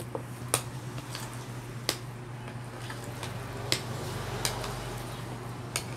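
Metal spoon stirring a thick, wet sardine, carrot and potato filling in a ceramic bowl: soft squishing with sharp clinks of the spoon against the bowl every second or two. A steady low hum runs underneath.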